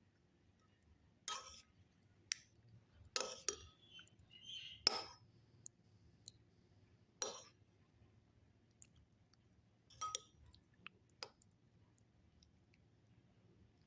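Cutlery clinking against dishes while eating: about eight sharp clinks and taps at irregular intervals, with fainter ticks between.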